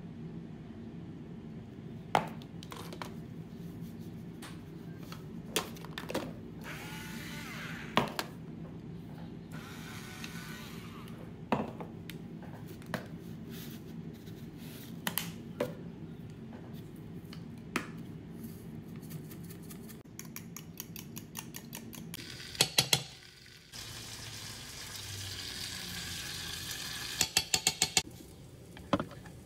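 Kitchen prep sounds: scattered clinks and taps of utensils and seasoning containers around a glass measuring cup of beaten eggs, over a steady low hum. Near the end comes a quick run of sharp knocks.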